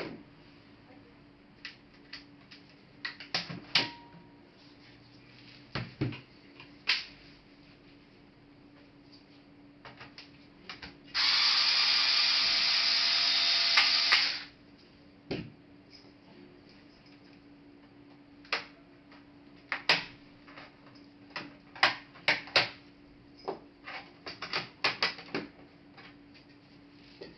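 Scattered clicks and taps of small tools and plastic laptop parts being handled, with one loud steady noise lasting about three seconds midway.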